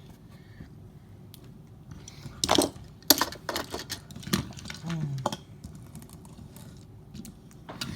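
Hard plastic toy cars being handled and knocked together: a run of sharp clicks and clacks from about two and a half seconds in, lasting about three seconds.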